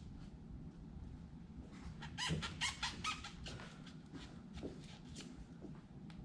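A short run of clicks and scraping about two to three seconds in, with a few faint knocks after: the leftover tail of foam weather stripping being cut flush at the truck bed rail.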